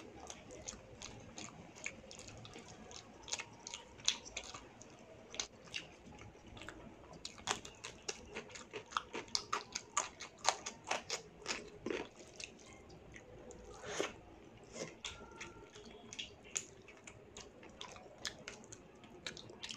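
Close-miked chewing of mouthfuls of rice and chicken liver curry eaten by hand, with many irregular sharp mouth clicks, densest from about seven to thirteen seconds in.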